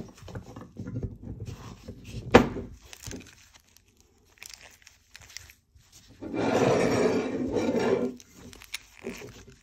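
A Master Lock 736 van lock being handled and picked open: faint scraping and ticking of metal, one sharp click about two and a half seconds in, and a loud scraping rub lasting about two seconds later on.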